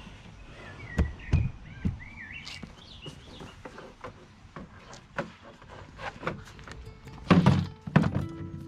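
Plastic knapsack sprayer handled and set down on paving slabs: a few dull thunks, with the loudest knocks near the end as it is put down.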